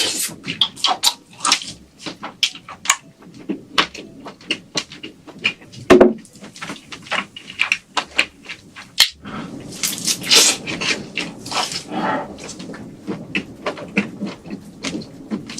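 Close-miked eating sounds of giant black tiger shrimp: a rapid, irregular run of crisp clicks and crackles, with one sharp knock about six seconds in and a denser stretch of crackling around ten to twelve seconds in.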